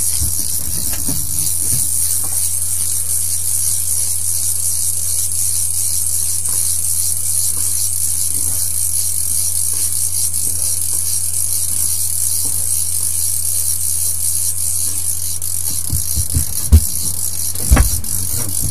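Fishing reel being cranked steadily, its gears giving a fast ratcheting whir of fine ticks as a hooked whitefish is reeled up through the ice hole, over a steady low hum. Two sharp knocks come near the end.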